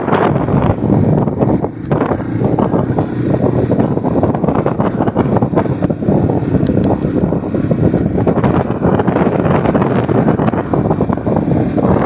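Wind buffeting the microphone on a moving motorcycle, with the bike's engine running steadily underneath.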